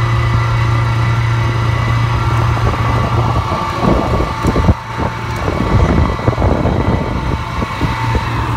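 An engine running steadily with a low hum, joined by louder, rougher rumbling noise from about three and a half seconds in to about seven seconds.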